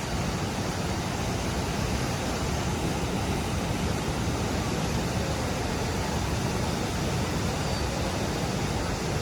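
Roar of a large waterfall, the Athirapilly Falls, where the Chalakudy River drops over a cliff: a steady, unbroken rush of falling water.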